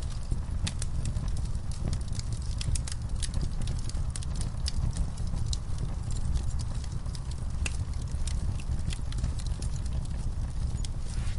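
Log fire in a fireplace crackling, with sharp irregular pops from the burning wood over a steady low rumble of the flames.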